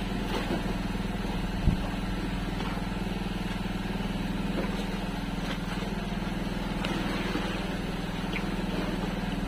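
Small engine running steadily with an even hum. One dull thump a little under two seconds in.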